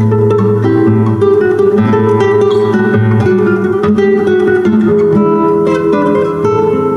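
Solo nylon-string classical guitar, fingerpicked: a waltz melody played over ringing bass notes.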